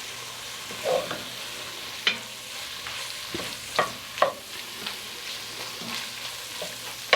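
Chopped onion, bell pepper, celery and garlic sizzling steadily in a dark roux while being stirred, with a few sharp knocks of the spoon against the pot, about two and four seconds in.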